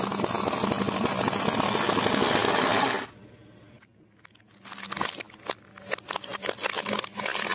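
Car tyre crushing a pile of crunchy snack sticks: a dense, loud crunching for about three seconds that stops abruptly. After a short lull comes a string of sharp, irregular cracks and snaps as the tyre presses down on an orange plastic toy truck.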